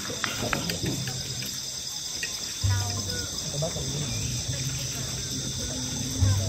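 Insects chorusing in a steady high-pitched trill, over a low hum that grows louder about two and a half seconds in and again near the end.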